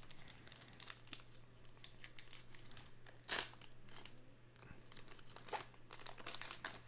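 Plastic wrapper of a baseball card pack being peeled and torn open by hand: faint crinkling throughout, with a louder rustle about three seconds in.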